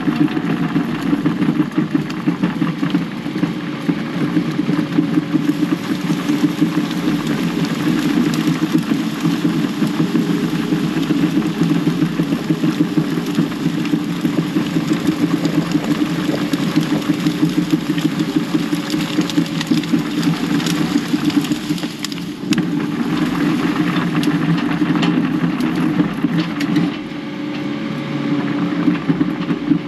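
Kubota KX080-4 excavator's four-cylinder diesel engine running steadily while working, with frequent clicks and knocks over it. The engine eases off briefly about 22 seconds in, and again near the end.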